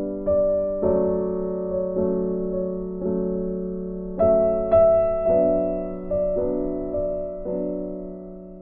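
Background music: slow, gentle keyboard chords, each struck and left to ring, fading away near the end.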